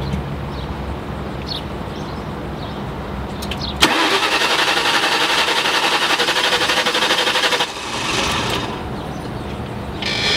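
Starter cranking the supercharged 4.6-litre V8 of a 2003 Ford Mustang SVT Cobra for about four seconds, starting suddenly a few seconds in, with an even rapid pulsing. It turns over but does not catch: a crank-no-start.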